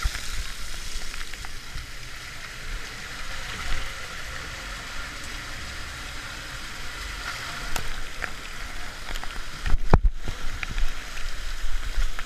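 Water rushing down a tube water slide with a rider on it, a steady hiss with a low rumble. A loud knock comes about ten seconds in.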